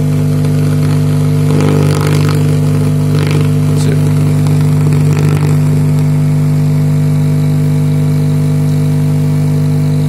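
Woofer in a plywood enclosure with a Tesla-valve port, driven by a steady low bass test tone around 40 Hz, just below the port's tuning. It sounds as a steady buzzing hum with many overtones, and air pulses through the valve port.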